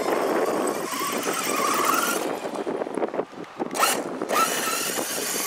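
Redcat Rampage XBE large-scale electric RC buggy sliding and spinning on dirt: tyres scrabbling and throwing dirt, with the electric motor's whine rising in pitch in short bursts as it is throttled, and a sharp burst about four seconds in.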